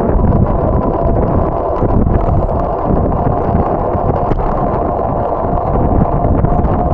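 Wind buffeting the microphone of a camera on a moving bicycle: a loud, steady rumble with faint irregular clicks from the ride over the pavement.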